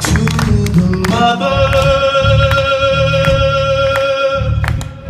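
Live band music at concert volume: a heavy, pounding low beat with one long held high note, sung or bowed, lasting about three seconds from just over a second in.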